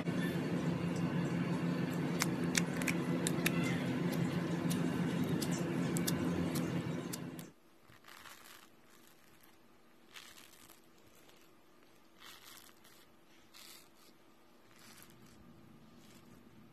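Purple slime being cut and worked with a blade: a crackling, scraping sound with sharp clicks over a steady low hum. About halfway in it cuts to fingers pressing a bubbly, holey slime, which gives a few faint, soft crinkly squishes.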